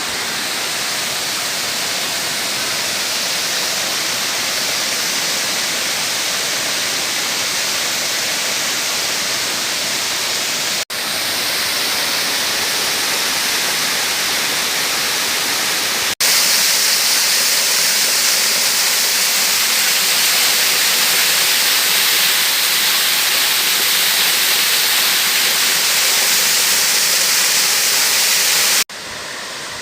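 Waterfall rushing: a steady, loud wash of falling water. The level jumps at breaks about 11 and 16 seconds in, is loudest after the second break, and drops near the end.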